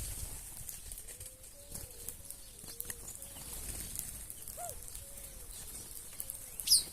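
A dove cooing, a steady series of soft, short rounded notes about two a second, among small birds. Near the end one sharp, high bird call that falls in pitch is the loudest sound.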